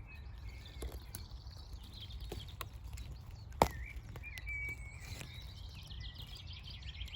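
Songbirds singing and chirping in the surrounding hedgerow, over a low rumble, with one sharp click about three and a half seconds in.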